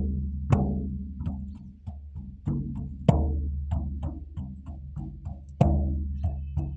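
Hand frame drum (shaman-style бубен) being struck, each beat ringing out deep and slowly fading, with a strong accented beat about every two and a half seconds and lighter strikes between.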